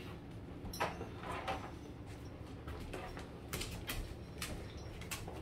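Scattered light knocks and scuffs of a person and a large dog moving about on a laminate floor, about half a dozen short clicks over a low rumble of movement.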